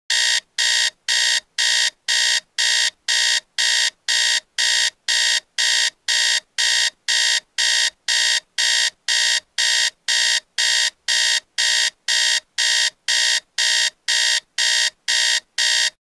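Electronic alarm clock beeping steadily, about two beeps a second, going off beside a sleeping person. It starts suddenly and cuts off suddenly.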